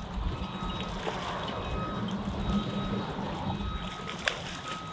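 Water sloshing against pier pilings as a small hooked snook splashes at the surface, with one sharp click about four seconds in.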